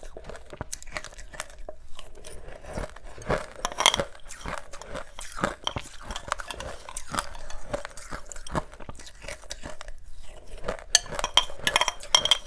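Close-miked chewing of powdery frozen ice dusted with matcha powder: rapid crisp crunches and crackles, with a short lull about ten seconds in before a dense run of crunching.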